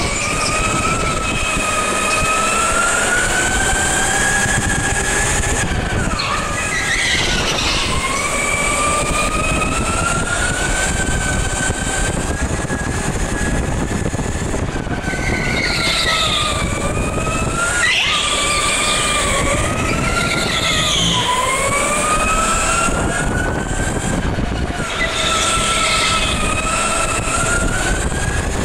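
Electric go-kart motor whining under the driver, its pitch rising and falling with speed and dipping several times as the kart slows, over steady tyre and track noise.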